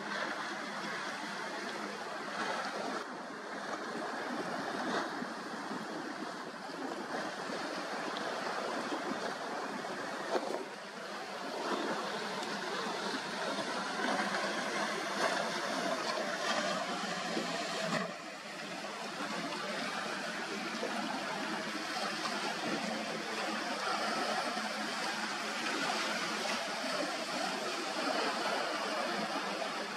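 Speedboats with multiple outboards running past at speed: a steady rush of hull spray and churning wake water, with brief dips about ten and eighteen seconds in.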